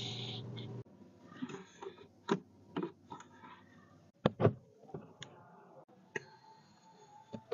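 A steady hum that cuts off abruptly just under a second in, then a run of small clicks and knocks from handling the cabin controls of a 2023 Lexus RX, with a louder double knock about four seconds in.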